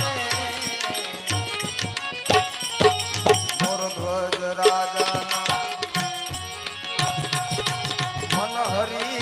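Instrumental interlude of a Gujarati santvani folk bhajan: tabla playing a steady rhythm under held notes from a melodic instrument. A singer's voice comes back in near the end.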